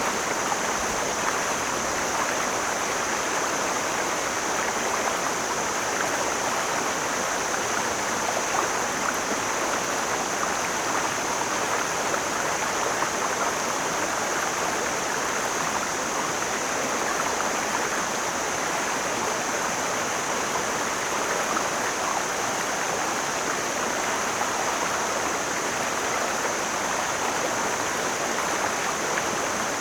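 Mountain stream flowing: a steady, even rush of water, with a constant high hiss above it.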